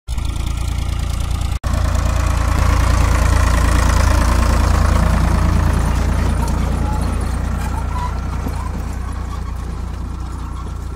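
Diesel tractor engine running steadily as it pulls a seed drill through the field, loudest a few seconds in and slowly easing off after. The sound cuts out for an instant about a second and a half in.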